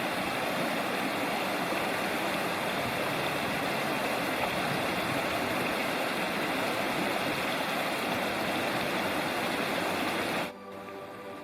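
Steady rushing noise, even and unbroken, that cuts off suddenly near the end, giving way to soft background music.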